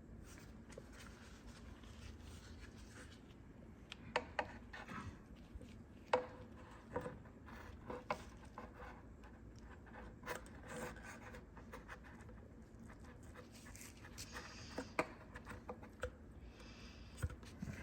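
Faint scattered clicks, taps and rubbing from hands working a quick-connect hose fitting, opening it and trying to fit it into place on the engine.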